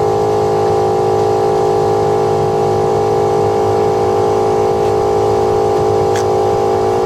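A motor running steadily at constant speed, a level hum of several held tones.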